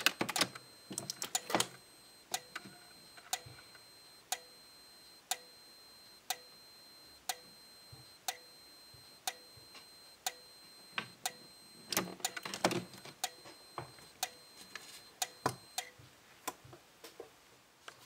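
Simplex 4904-9301 sync strobe flashing about once a second on interrupted power from a System Sensor MDL sync module, each flash a sharp tick, over a faint high steady whine. A few louder, irregular clicks near the start and about twelve seconds in.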